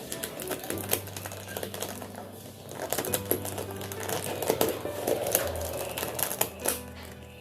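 Plastic clicks and rattles of 3x3 Rubik's cube corner pieces being pressed and snapped into place, many quick irregular clicks, over background music.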